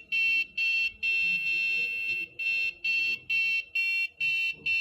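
Electronic ringtone of high, buzzer-like beeps repeating about twice a second, broken by one longer held beep about a second in.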